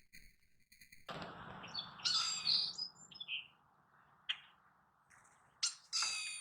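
Wild birds calling and chirping in a series of short calls, with a few sharp clicks. Under them, a rushing noise starts suddenly about a second in.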